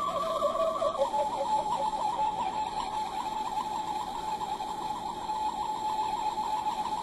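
Sound module in a replica Star Trek original-series tricorder playing its electronic scanning effect: a warbling two-tone sound that switches about a second in to a single high tone pulsing rapidly and steadily.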